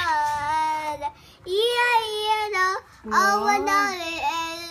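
Young girl singing in a high voice, holding long gliding notes in three phrases with short breaks about a second and three seconds in.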